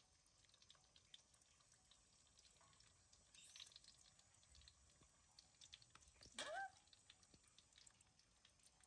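Faint crackle of food frying in oil in a wok, with a baby monkey giving one short, high squeak about six and a half seconds in.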